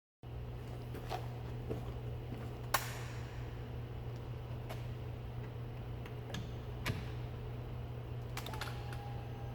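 A steady low hum with a handful of sharp clicks and taps scattered through it. A faint thin whine starts near the end.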